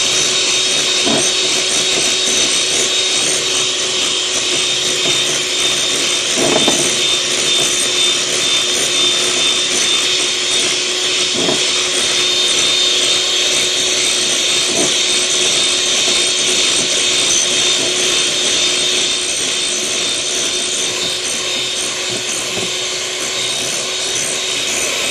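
Electric hand mixer running steadily, its beaters whisking eggs and sugar into sponge-cake batter in a glass bowl: a steady motor whine over a whirring hiss, with a few light knocks.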